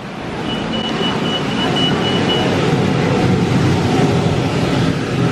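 A shop's anti-theft security gate beeping: a high tone in quick pulses for about two seconds, starting about half a second in. Under it, a steady rush of background noise that swells over the first few seconds.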